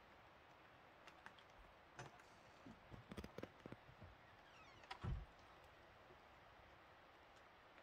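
Faint, scattered clicks and taps of a cat's paws and claws on a car's painted metal hood and wiper area, with a louder dull thump about five seconds in, over near silence.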